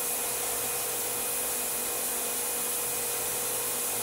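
Tormach 1100M CNC mill running its spindle at maximum speed, about 7,500 RPM, while a 1/16-inch carbide end mill cuts small parts. The sound is a steady machine hiss with a constant whine.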